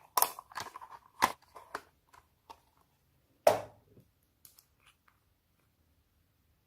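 Homemade slime being squeezed and stretched by hand: a quick run of sticky crackles and pops, one louder pop about three and a half seconds in, then a few faint clicks before it goes still.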